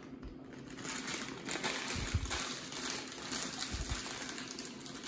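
Plastic inner bag of brownie mix crinkling as it is handled and pulled open by hand, with two dull low thumps about two seconds in and near four seconds.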